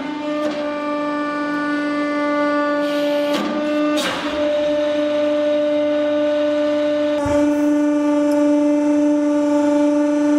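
Hydraulic press running with a steady, loud droning tone from its pump. Sharp cracks come about three and four seconds in, and a thump comes just past seven seconds, where the drone shifts a little.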